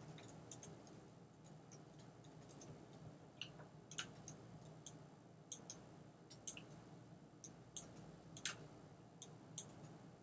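Faint, irregular keystrokes and clicks of a computer keyboard and mouse, over a faint steady low hum.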